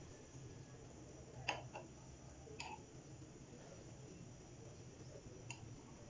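Metal ladle knocking lightly against a clay pot while stirring soup: a few short, faint clicks over a low steady background hum.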